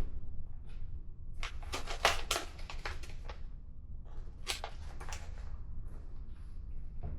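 A spoon clicking and scraping against a bowl while scooping marinated chicken into a bag, in two short bursts of handling noise about a second and a half in and again around four and a half seconds, over a steady low hum.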